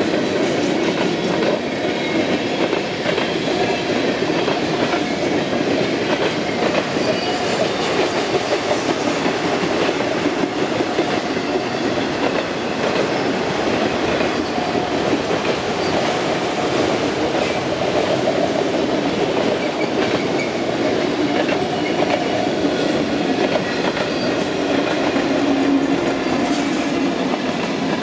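Freight train of centerbeam flatcars and autorack cars rolling past close by: a steady rumble of steel wheels on the rails, with repeated clicks as the wheels pass over the joints.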